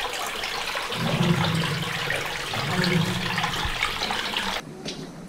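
Steady rushing noise with a low murmur in two stretches, cut off abruptly near the end.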